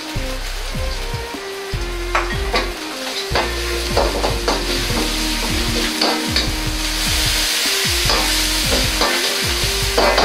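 Doubanjiang, garlic and ginger sizzling in hot oil in a wok, with a metal ladle scraping and knocking against the wok as it is stirred. The sizzle grows louder about seven seconds in.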